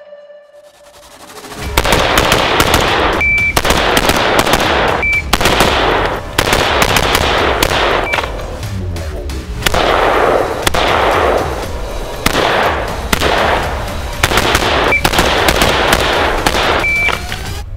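AR-15-pattern rifles, a military M4 and a civilian AR-15, firing rapid strings of shots over music, starting about a second and a half in. A few short high beeps sound between strings.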